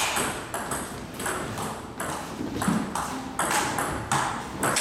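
Table tennis ball being hit back and forth, a quick irregular series of sharp clicks off rackets and table, several a second.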